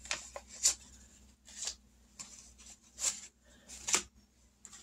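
Paper rustling and crinkling in short, scattered bursts as savings envelopes and paper money are handled.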